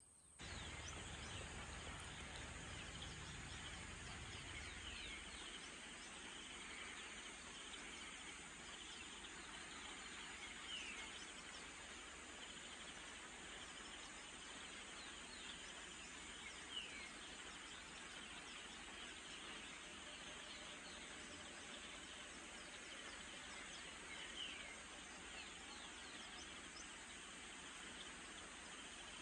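Faint steady background hiss with an even, high insect drone and short bird chirps scattered every few seconds. A low rumble ends about five seconds in.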